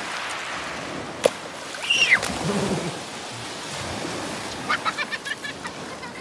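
Small waves breaking and washing up a shingle beach, a steady hiss of surf. A sharp click comes about a second in, a short falling cry near two seconds, and a quick run of short high calls near the end.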